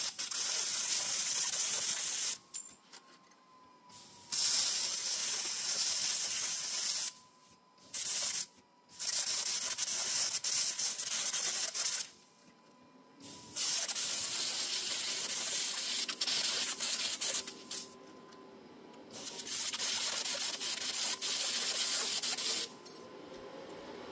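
Compressed-air assist gas hissing from a handheld 700 W fiber laser cutting torch as it cuts through 1 mm steel. The hiss comes in about five runs of a few seconds each, stopping and starting with short pauses between.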